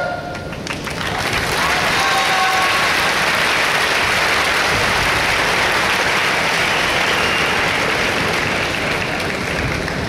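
Large audience applauding, building up about a second in, holding steady and easing off near the end.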